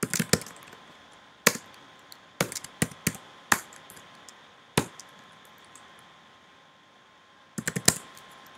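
Typing on a computer keyboard in short, irregular bursts: a few quick keystrokes at the start, single strokes and small clusters through the middle with pauses between, and a fast run of about five near the end.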